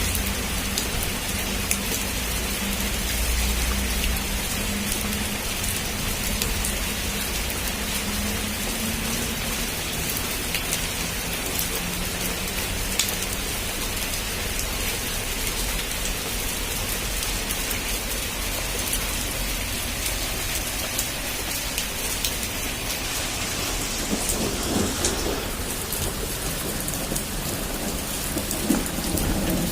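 Heavy rain pouring steadily with dense patter of drops, under low rumbles of thunder that are strongest in the first few seconds.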